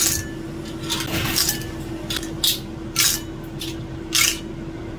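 Cooked clams in their shells being scooped with a metal utensil into a ceramic bowl. The shells clatter and clink against the bowl and each other in about five separate bursts, with the utensil scraping. A steady low hum runs underneath.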